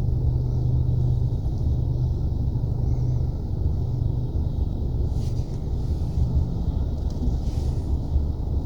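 Car engine and road rumble heard from inside the cabin as the car moves slowly while parking: a steady low rumble with a low engine tone that weakens about three seconds in.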